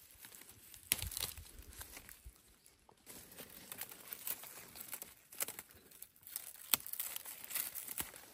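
Leafy stems rustling and crackling as they are handled and their shoots picked by hand, with scattered sharp snaps, the loudest about a second in and another later on.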